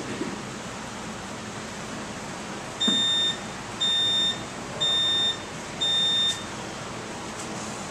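Wall-mounted gym interval timer beeping four times, a second apart, as it counts down the last three seconds and reaches zero to start the workout clock. Each beep is a short, high-pitched tone about half a second long.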